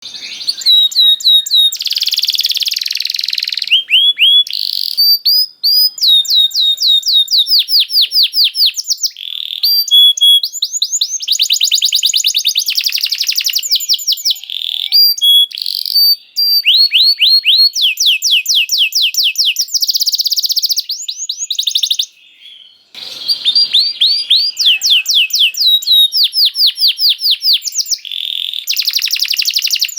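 Canary singing continuously: long rolling trills of rapidly repeated high notes, changing from one phrase to the next, with a brief pause about two-thirds of the way through.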